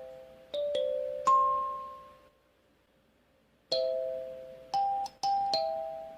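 Cega acrylic 8-key kalimba, its metal tines plucked one or two at a time in a slow tune, each note ringing clearly and fading, with no dead tines. A few notes sound, the highest and loudest rings out about a second in, then a pause of about a second and a half before four more notes.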